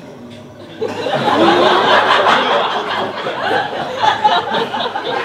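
Many voices break out together about a second in, a loud, dense jumble of laughing and shouting.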